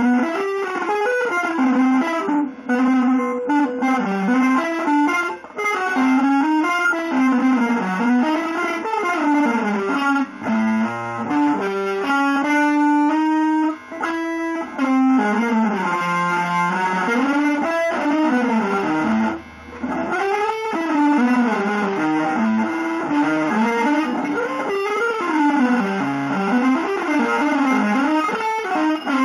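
Electric guitar playing a winding single-note melodic line, mostly in quick runs, broken by a few brief pauses.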